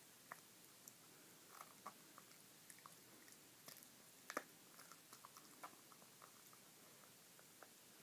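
Small dog chewing and gnawing on a cooked pig's trotter held out in a hand: soft chewing with scattered crunches and clicks of teeth, the loudest a little past the middle and sparser toward the end.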